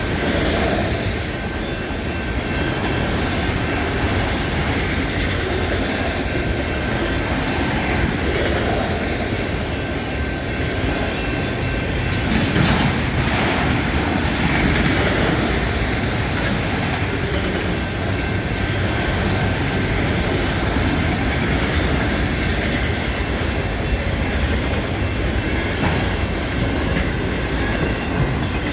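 Freight cars of a long CN freight train rolling past steadily, steel wheels running on the rails with a thin steady high squeal over the noise.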